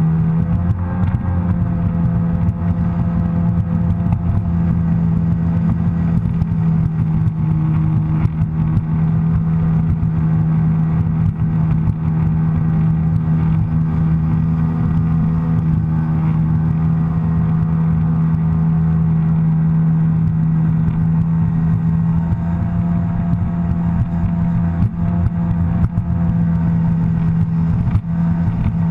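Sea-Doo personal watercraft engine running at a steady cruising speed of about 30-35 mph. It is a steady drone whose pitch rises briefly just after the start and then holds level.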